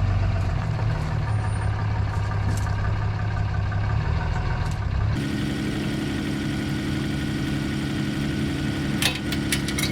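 A heavy vehicle engine running steadily. About five seconds in, the sound switches abruptly to a different steady engine note, and a few clicks come near the end.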